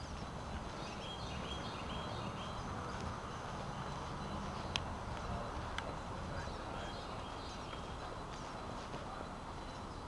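Outdoor ambience of songbirds chirping in short repeated notes over a steady low noise, with footsteps on damp ground and leaves. Two sharp clicks come about a second apart near the middle.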